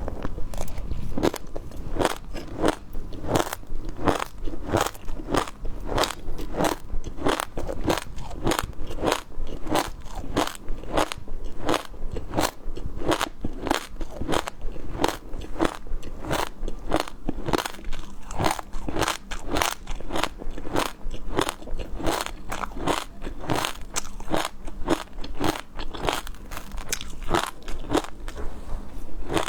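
Close-miked crunchy biting and chewing of seafood, with sharp crackling crunches about two a second.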